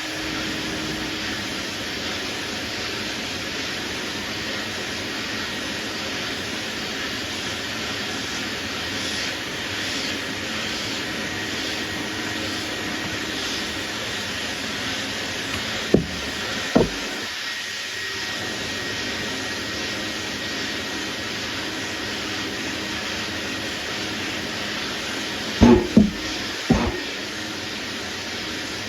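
A sanding block with 180-grit paper scrubbing over a primered panel, block sanding through the guide coat to flatten high spots: a steady rasping hiss, with a few short knocks about 16 and 26 seconds in.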